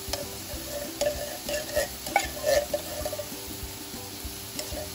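Metal spoon and spatula clinking and scraping against a stainless pan and the shells of apple snails as coconut cream is spooned in, with several sharp clicks about a second to two and a half seconds in. A light sizzle of the sautéing snails runs underneath.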